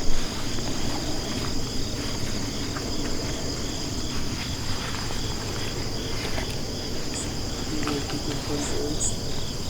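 Steady high-pitched trilling chorus of field insects, pulsing evenly without a break.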